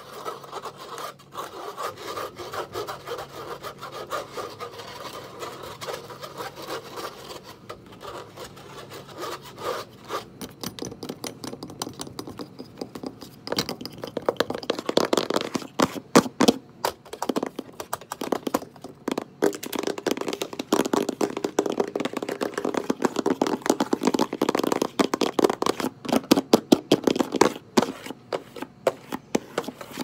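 Fingernails scratching and tapping fast on a windowsill, close to the microphone. A scraping rub at first, then from about ten seconds in a dense run of quick, sharp taps and scratches that gets louder.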